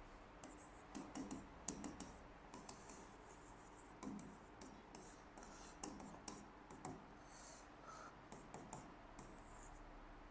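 Faint scratching of a pen writing, in short irregular strokes, as a 2×2 matrix adjoint is worked out by hand.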